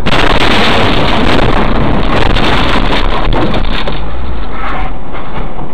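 Loud, steady road and engine noise of a car driving, heard inside the cabin through a dashcam microphone.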